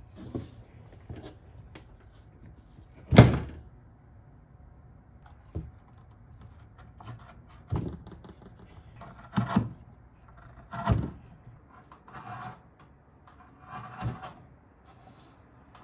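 Wood-carving strokes as a curved gouge scoops out the bowl of a wooden spoon blank: about ten separate knocks and short scraping cuts, irregularly spaced, the loudest a sharp knock about three seconds in.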